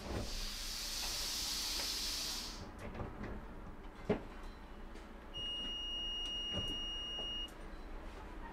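Working sounds of a Vario LF2+ tram heard from the driver's cab: a hiss for about two and a half seconds, a few clicks with one sharp click near the middle, then a steady high beep lasting about two seconds, over a low steady hum.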